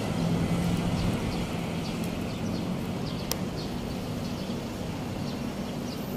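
Steady city street traffic noise with a low engine hum, and short high chirps of small birds scattered throughout. One sharp click about three seconds in.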